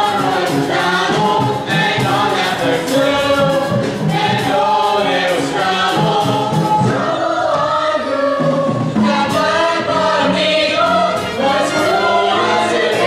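Musical-theatre chorus: a large cast singing together in full voice over instrumental accompaniment with a steady beat.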